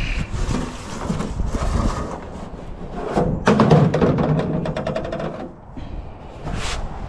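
Aluminum gutter downspout being picked up and carried: hollow metal scraping and knocking, with a run of clattering about three and a half seconds in, and footsteps.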